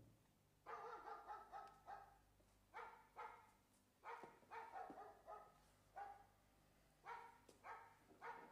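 A dog barking over and over, in quick runs of several barks with short pauses between.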